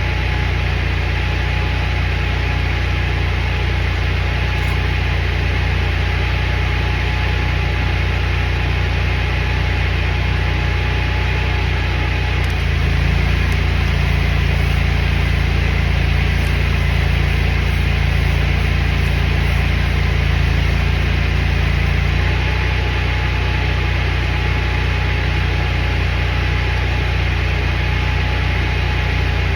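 Engine-driven welding machine running steadily. For about ten seconds in the middle its engine note shifts up and grows a little louder, as it takes the welding load, with a steady hiss alongside.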